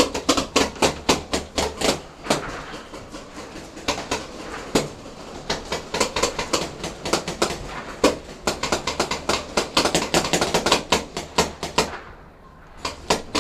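Paintball markers firing in rapid, irregular volleys of sharp pops, thickest about two-thirds of the way through, with a brief lull near the end.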